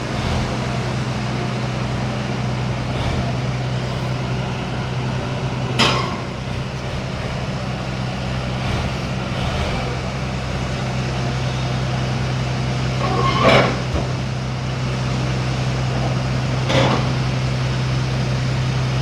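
Shantui SD22F bulldozer's diesel engine running steadily, with three sharp knocks at about 6, 13.5 and 17 seconds, the middle one the loudest.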